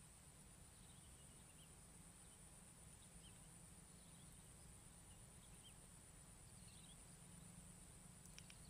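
Near silence outdoors: a faint, steady high-pitched insect drone, with scattered faint short bird chirps every second or so.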